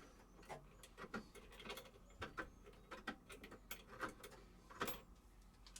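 Faint, irregular clicks and light taps of hand tools and metal hardware being handled while bolts are taken out.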